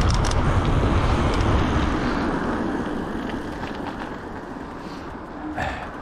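Wind rushing over the camera microphone and mountain-bike tyres rolling on asphalt as the bike coasts downhill; the rush eases off over the second half.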